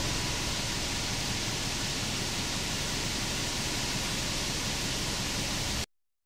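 Steady outdoor background hiss with a low rumble beneath it and no distinct events. It cuts off abruptly near the end.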